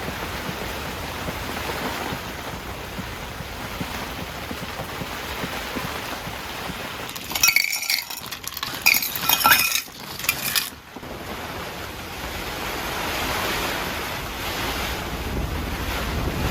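Heavy rain and gusting wind beating steadily on the camping tent and tarp. About halfway through comes a loud burst of clattering and clinking lasting a few seconds.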